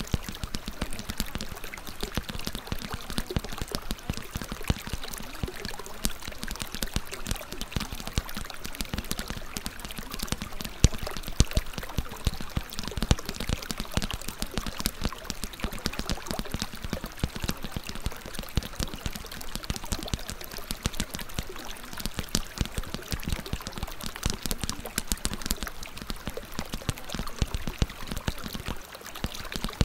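Continuous water sound, like pouring or running water, with many small splashes and crackles throughout.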